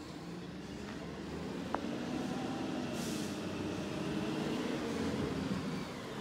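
Garbage truck's diesel engine running as the truck approaches, growing gradually louder, with a short hiss of air from its brakes about three seconds in.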